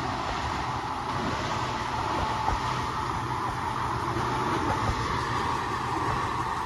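Two diesel freight locomotives passing as they cross a steel truss bridge, their engines droning steadily under the noise of wheels on rail.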